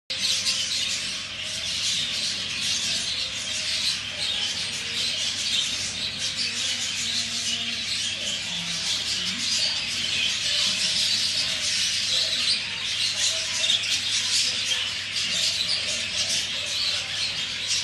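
Budgerigars chirping and chattering without pause, a dense twittering of many short high calls, over a faint steady low hum.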